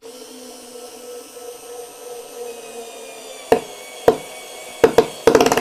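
Parkside PAS D5 4 V cordless screwdriver driving a screw into wood at the lowest torque setting: the geared motor runs with a steady whine, then a few sharp clicks come about three and a half seconds in. Near the end the torque-selector clutch slips and ratchets rapidly and loudly, the sign that the set torque has been reached.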